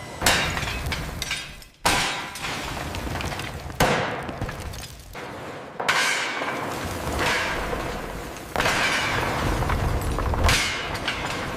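Six crashing, shattering impacts, one about every two seconds, each fading away in a long ringing tail.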